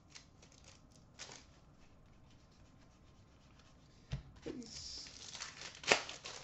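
Hockey card pack handled and opened: faint rustling and a few light clicks, then about four seconds in a knock followed by crinkling and tearing of the foil wrapper, with a sharp snap near the end.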